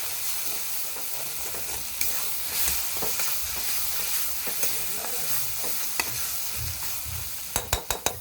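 Capsicum and onion masala sizzling as it fries in oil in a pan, stirred and scraped with a spatula. Near the end come about five quick, sharp knocks.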